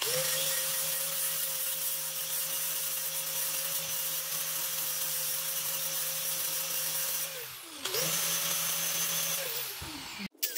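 4.5-inch angle grinder with a 60-grit flap disc grinding a steel part under light pressure, its motor running at a steady whine over the hiss of the disc. About three quarters of the way through it briefly slows and picks up again, and near the end it winds down and stops.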